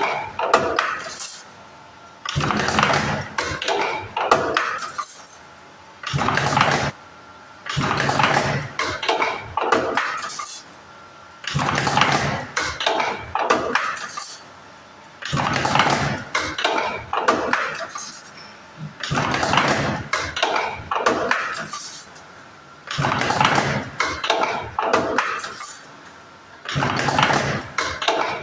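Automatic bucket handle making machine running in repeated cycles: bursts of metallic clattering and clinking a few seconds long, separated by short, quieter pauses, about one cycle every three to four seconds.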